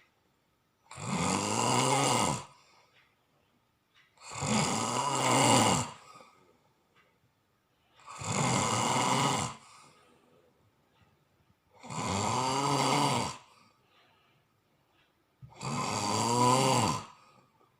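Loud snoring from a sleeper: five long rattling snores, each about a second and a half, coming at a regular pace of roughly one every three and a half to four seconds, with quiet breaths between.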